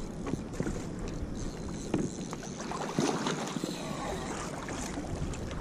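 Sea water sloshing and splashing against a fishing kayak, with a few short knocks about two and three seconds in.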